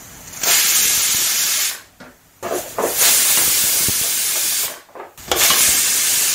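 Aluminium pressure cooker whistling three times: loud hissing blasts of steam escaping past its lifting weight valve, the third still going at the end. Three whistles mark the rice as cooked under pressure.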